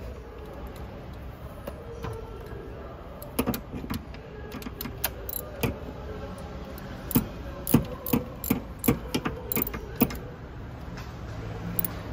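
Ratchet wrench clicking in short irregular strokes as a spark plug is tightened. Sharp metallic clicks come from about three seconds in until about ten seconds.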